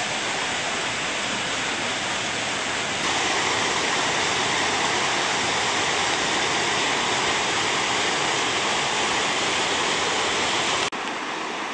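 River rapids: a steady rush of white water. It gets louder about three seconds in and drops abruptly just before the end.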